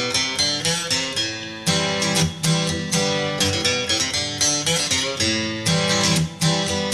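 Instrumental background music with a steady rhythm of picked notes.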